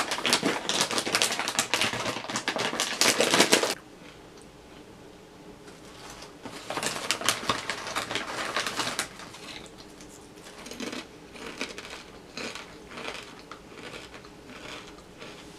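Crinkly kettle-chip bag being opened and handled, a dense crackling that stops abruptly about four seconds in, with a second bout a few seconds later. After that comes faint, scattered crunching as the chips are eaten.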